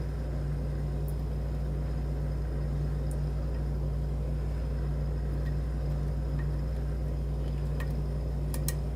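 Steady low background hum, with a few faint light clicks, mostly near the end, from a lock pick working the pins of a lock held in a vise.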